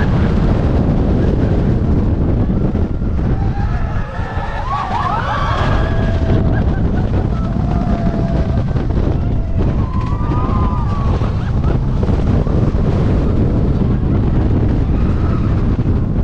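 Steady wind buffeting the microphone, a loud low rumble, with faint voices in the background.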